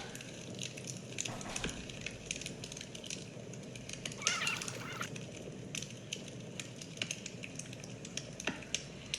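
Irregular light clicks and crackles, with a brief louder rustling noise about four seconds in.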